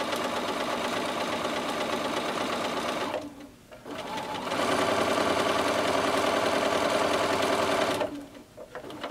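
Bernina electronic sewing machine stitching a quarter-inch seam through quilting cotton. It runs steadily, stops for about a second a little after three seconds in, then runs again louder before stopping near the end.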